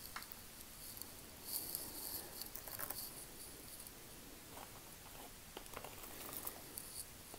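A plastic bag of costume jewelry rustling faintly as a hand rummages through it, with a few light clinks of metal and beads. The rustling comes in two short stretches, about a second and a half in and again near the end.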